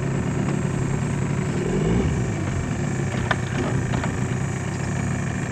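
An engine running steadily, with a brief rise in pitch about two seconds in.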